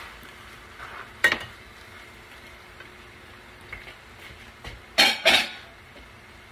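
Kitchenware clattering: a sharp knock about a second in, then two loud clanks in quick succession near the end, as a plate and utensils are handled and set down. A faint steady sizzle from the frying pan runs underneath.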